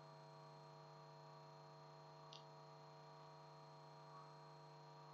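Near silence: a faint, steady electrical hum, with one tiny tick about two seconds in.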